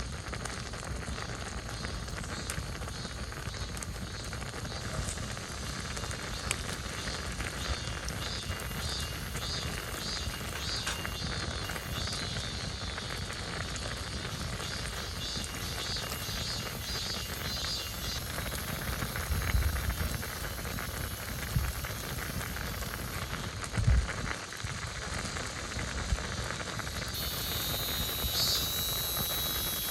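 A pot of ramen broth boiling on a camping stove: a steady bubbling hiss, with a few low thumps.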